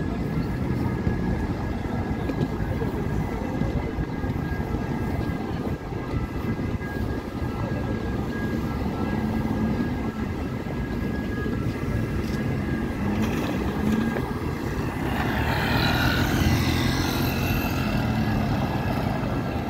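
City street traffic: cars and motor scooters passing on a cobbled road, a steady low rumble. A higher wavering engine-like sound rises and falls for a few seconds near the end.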